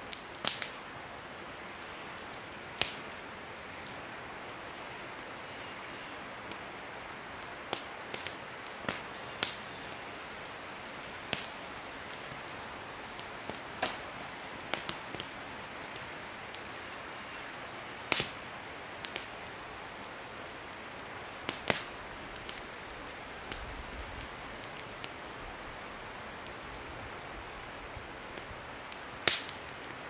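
Wood campfire crackling: irregular sharp pops and snaps every second or two, a few much louder than the rest, over a steady rushing hiss.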